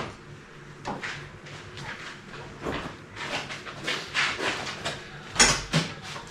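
Scuffs, rustles and light knocks of someone climbing into a UTV's seat, with a louder thump about five and a half seconds in.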